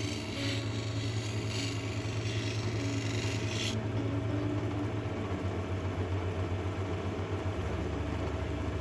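Electric motor of an opal-cutting lapidary machine running steadily with a low hum while the stone is worked on the wheel. A higher hiss over the hum stops abruptly about four seconds in.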